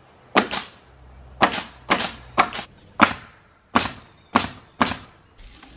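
DeWalt pneumatic nail gun driving about ten nails into wooden fly rafter boards, a sharp crack for each shot at irregular intervals, sometimes two in quick succession. It fires with full air pressure now that the leaking O-ring fitting on its air line has been fixed.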